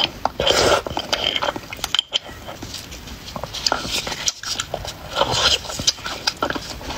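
Close-up slurping and sucking of braised beef bone marrow straight from the cut bone, with wet chewing and lip-smacking in an irregular run of short noises.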